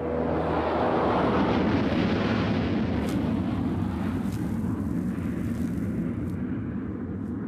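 Steady rushing hiss of a row of fog-mist nozzles spraying, swelling over the first two seconds and then slowly easing.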